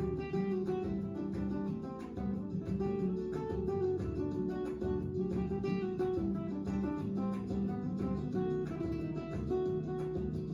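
Background music: acoustic guitar playing a steady run of plucked notes.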